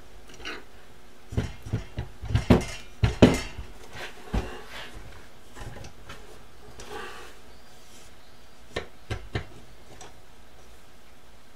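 Metal clinks and knocks from 8 mm polished steel rods and box-type linear bearings being slid through the printer frame's mounts. There is a cluster of sharp knocks in the first few seconds, one more shortly after, then three light clicks near the end.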